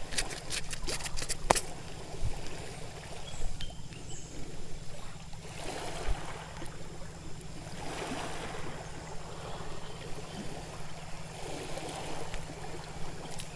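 Small sea waves washing onto a rocky, pebbly shore, the rush swelling and fading several times. A few sharp clicks in the first second and a half as a metal jig hook is worked out of a small fish.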